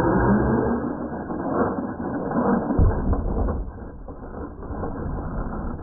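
Losi LMT radio-controlled monster truck's electric motor and geared drivetrain whirring as it drives and jumps on a dirt track, powered by a 2S battery. A heavy thump comes about three seconds in.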